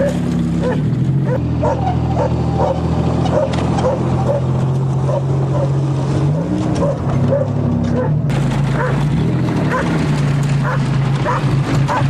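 A dog barking over and over, about two barks a second, over the Buick 3.8 V6 engine running steadily, which revs up briefly a few times.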